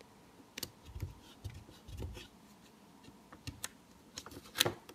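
Fingers handling paper stickers on a magazine page: scattered light clicks and paper rustles, with a few soft thumps of pressing on the page in the first couple of seconds and a sharper tap near the end.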